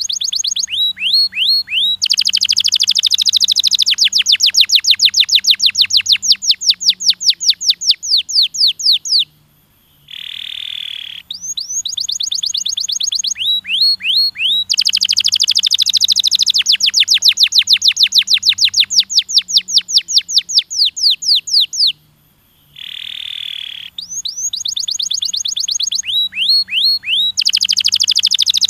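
Domestic canary singing: a held high whistled note, a few quick falling notes, then a long fast trill of rapid falling notes that slows and breaks off. The same phrase comes round about every twelve seconds.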